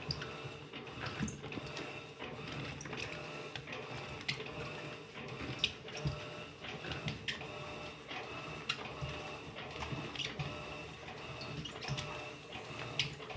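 Electrolux LTC15 top-loading washing machine running its wash, the motor's whir coming and going about once a second, with water moving and small scattered knocks.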